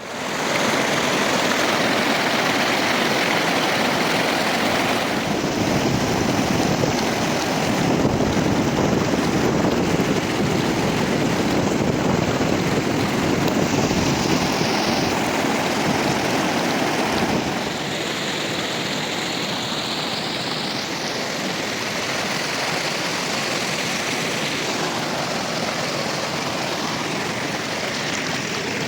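River water rushing, a steady loud noise that drops a little about seventeen seconds in.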